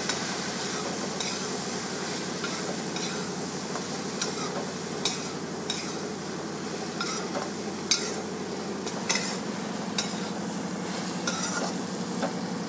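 A metal spatula stirring chopped okra and spices in a metal kadhai, scraping and clicking against the pan every second or two over a steady low sizzle of frying.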